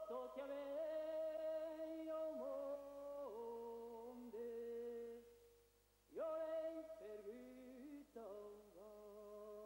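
Soundtrack music of voices singing a slow a cappella melody, with notes held and stepping from one pitch to the next. It comes in two phrases, with a brief pause at about five seconds.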